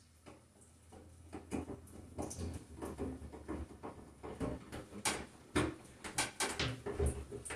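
Hand screwdriver driving a screw through the sheet-metal housing of a Broan bathroom exhaust fan into the ceiling: irregular clicks and scrapes as the screw is turned, growing busier after the first second.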